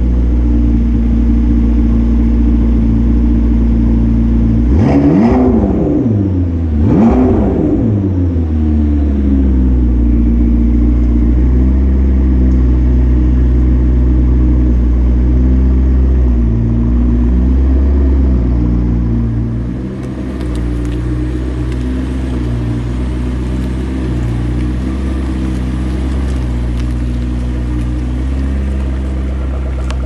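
McLaren 650S's twin-turbo V8 idling, blipped twice about five and seven seconds in, each rev rising and dropping quickly back to idle. About twenty seconds in the sound changes character while the steady idle carries on.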